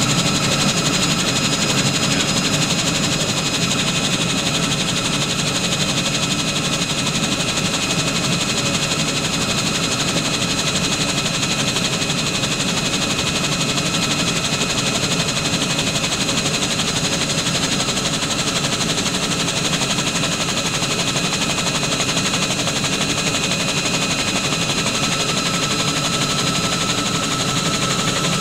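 Bell 47 helicopter in flight, heard from on board: its piston engine and rotor run steadily as a loud, even noise with a few high, steady whining tones over it.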